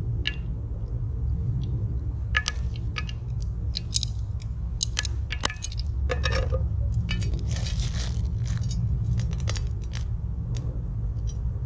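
A homemade spatula stirring and scraping meatballs and onions in a Trangia 27 camping pan, with irregular clinks and scrapes against the metal over a steady low rumble.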